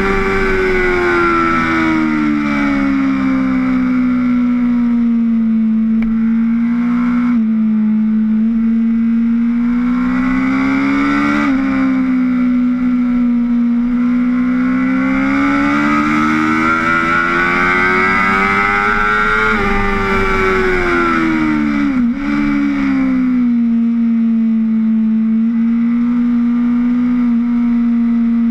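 Sport motorcycle engine heard from a camera on the bike itself, its pitch climbing and falling through the bends and jumping abruptly at several gear changes.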